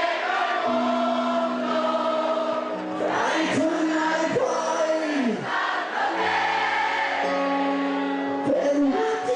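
Live amplified music: a man singing into a handheld microphone over an accompaniment of long held chords, his voice coming in with bending, gliding notes about three seconds in.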